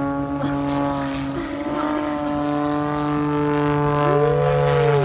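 Single-engine aerobatic propeller plane's engine droning steadily overhead, its pitch swelling and falling back about four seconds in as it manoeuvres.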